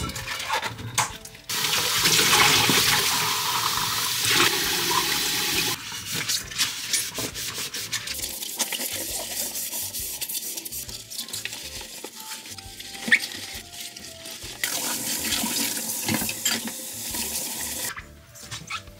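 Running water, turned on and off twice, with clicks and knocks of things being handled between the two runs.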